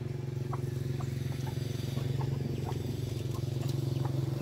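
An engine running steadily, a low pulsing hum, with a few light ticks over it.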